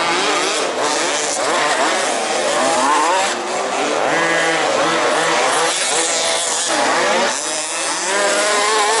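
Several 1/5-scale RC off-road race cars' small two-stroke petrol engines buzzing at once, each rising and falling in pitch as the cars accelerate and back off around the track.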